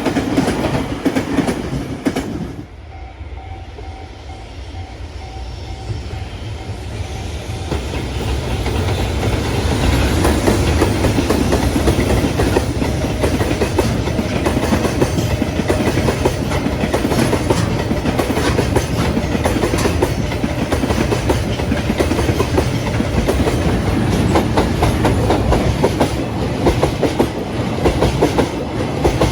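Freight train rolling past a level crossing, its wheels clattering densely over the rails. The noise drops abruptly about two and a half seconds in, then builds back over several seconds and stays steady and loud.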